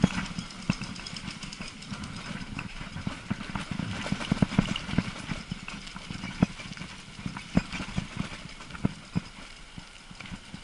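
E-bike rattling and knocking as it rolls over cobblestone paving: irregular sharp jolts several times a second over a steady low rumble of tyres and wind.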